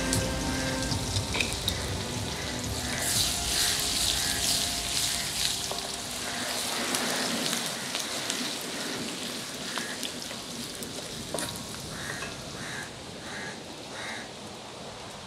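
Fish frying in hot oil in a pan, a steady sizzle that swells for a couple of seconds a few seconds in, then eases.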